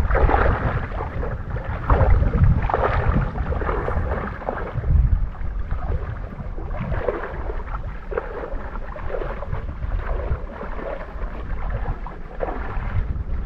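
Footsteps wading through shallow water: irregular splashing and swishing as legs push through it, over a low wind rumble on the microphone.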